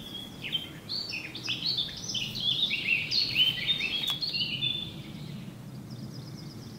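Songbirds singing in chorus: many quick chirps and short falling whistles overlapping, busiest for the first five seconds, then thinning to sparser, fainter high notes.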